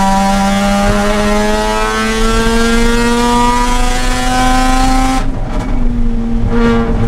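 Mazda RX-8's two-rotor rotary engine under throttle, revs climbing steadily through a gear. About five seconds in the throttle comes off: the note drops and turns quieter and duller.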